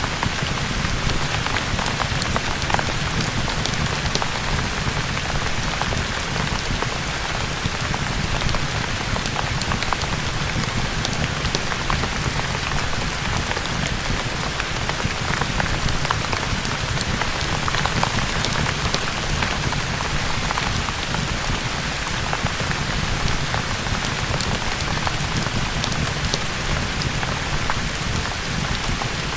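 Steady rain ambience: an even, unbroken hiss of rain on surfaces with many small scattered drop ticks.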